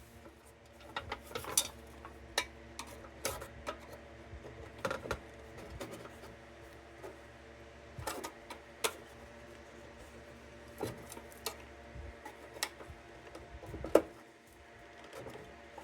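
Metal parts of an old kerosene lantern being handled and worked on: scattered light metallic clicks and taps, irregular, with a sharper knock about 14 seconds in.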